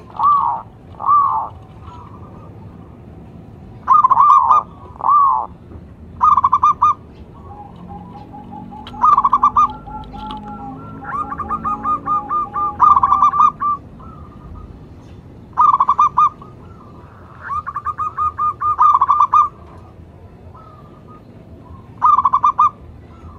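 Zebra doves (perkutut) cooing, with repeated short phrases of rapid pulsed coos. Around the middle, a lower-pitched bird's long trilling series overlaps another's, as the birds answer each other.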